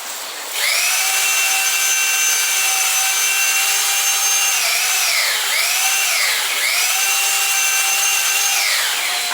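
Bosch impact drill in plain drilling mode, hammer off, boring through a piece of wood with a high-speed-steel bit. The motor whines at a steady pitch, its speed dips and picks up again twice around the middle, and it winds down near the end.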